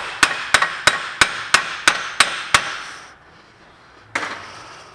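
A hammer repeatedly striking the rusted rear wheel hub of a Ford Expedition, about three sharp metallic blows a second, to knock the hub loose for bearing replacement. The blows stop about halfway through, and one more knock follows near the end.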